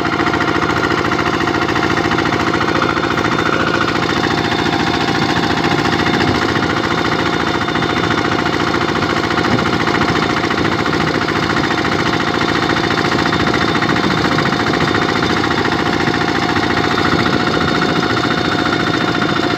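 Single-cylinder diesel engine of a Kubota RT-series two-wheel walking tractor running steadily under load as it pulls a trailer along the road, a loud, even chugging throughout.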